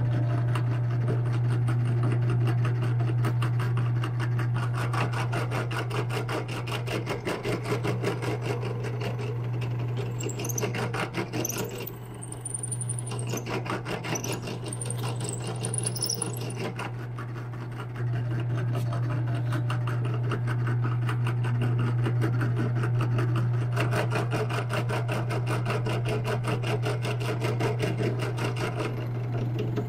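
A small workshop power tool running steadily with a low hum and a fast rasping texture as it works a part, with brief high-pitched squeals near the middle and short drops in level about twelve and eighteen seconds in.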